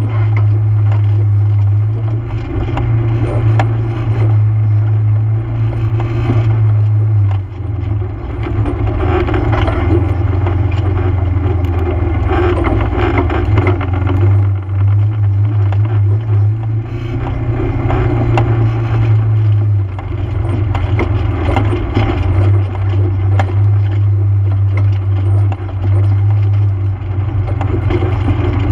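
ATV engine running under way on a dirt trail, its note dropping and rising several times with the throttle, over a steady clatter and knocking from the rough ground.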